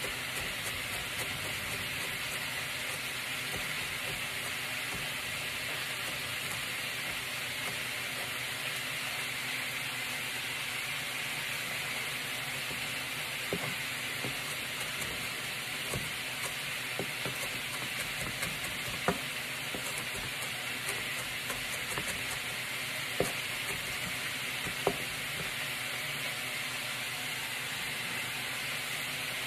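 Beef short rib searing in a hot pan, a steady sizzle throughout. Over it, a few sharp knife chops on a plastic cutting board as ginger is minced, mostly in the second half.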